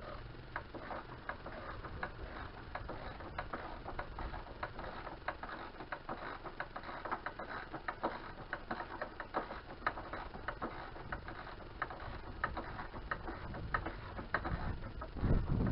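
Socket ratchet clicking in irregular runs of a few clicks a second as it is worked back and forth on a bolt. A louder low rumble sets in near the end.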